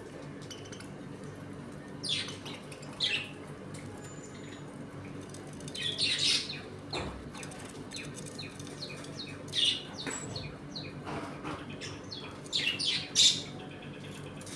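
Budgerigars giving short, scattered chirps, the loudest near the end, over a steady low hum.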